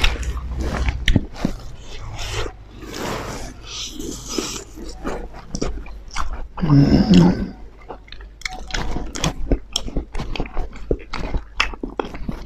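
Close-miked eating sounds: chewing, lip smacking and wet mouth clicks as rice and pork are eaten by hand, with a short low voiced grunt about seven seconds in.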